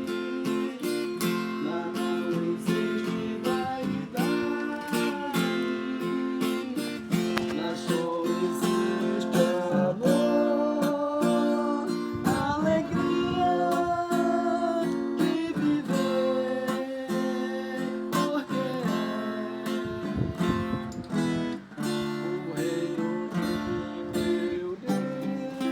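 Acoustic guitar playing a melody over fingerpicked and strummed chords.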